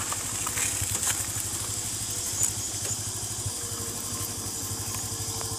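Motorcycle engine running with an even low pulsing, while insects buzz high in the background.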